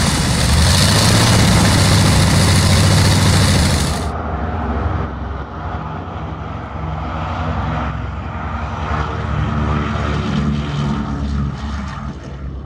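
A Wright R-3350 Duplex-Cyclone 18-cylinder twin-row radial aircraft engine running loud on a trailer test stand, its propeller turning. About four seconds in the sound cuts to the quieter, duller running of a B-29 Superfortress's four Wright R-3350 radials, with a pulsing low rumble.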